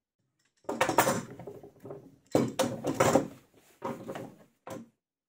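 Clamps and plywood being handled on a wooden workbench: spring clamps and bar clamps set and tightened around a glued plywood box, giving four bursts of clatter and knocks starting about a second in.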